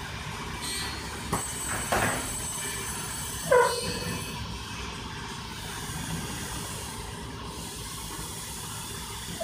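Pirate ship swing ride in motion: a steady rushing noise with a click a little over a second in, a brief rush near two seconds, and a short squeal falling in pitch about three and a half seconds in.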